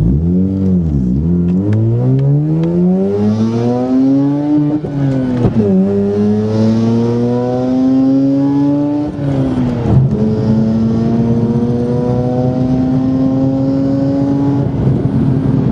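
Mazda RX-8's two-rotor Renesis rotary engine accelerating hard from a standstill, heard from inside the cabin: its pitch climbs steadily, drops sharply at a gear change about five seconds in and again at about nine to ten seconds, then climbs again. This is a full-throttle run on its original ignition coils.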